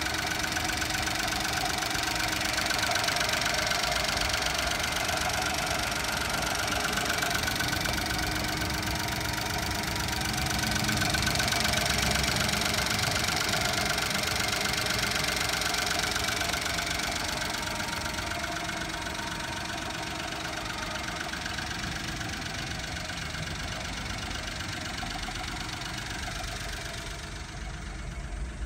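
Honda Acty kei truck's under-bed three-cylinder engine idling steadily, heard close through the open engine hatch in the load bed. Near the end the sound turns quieter and duller.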